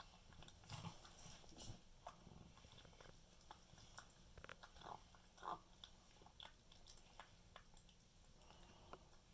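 A kitten eating: faint, irregular chewing and clicking sounds, with a short louder sound about five and a half seconds in.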